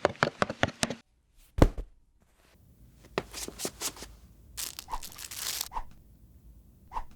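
Packaging being torn open: a quick run of clicks and a thump, then two stretches of tearing.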